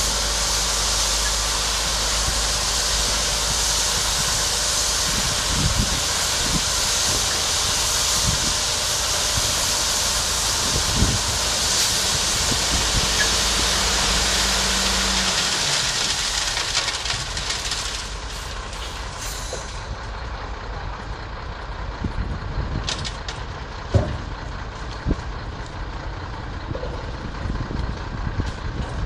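Dump truck with its bed raised, tipping a load of rock: the engine runs the hoist under a loud, steady rushing hiss. About two-thirds of the way through, the rush and the engine both drop away, leaving a quieter hiss with a few scattered knocks.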